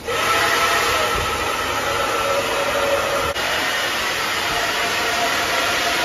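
Handheld hair dryer switched on and running steadily: an even rushing of air with a faint motor whine underneath.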